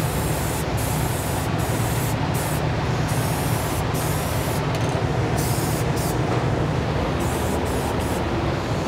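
Aerosol spray paint can hissing steadily in one long, continuous spray as paint is applied to a carved wooden nameplate.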